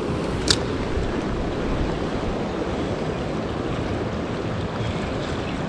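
Steady rush of a creek running high and fast with muddy runoff, with a single sharp click about half a second in.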